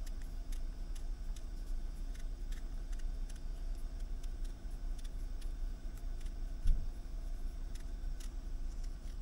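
A steady low hum with faint light ticks scattered through it, and one dull thump about two-thirds of the way through.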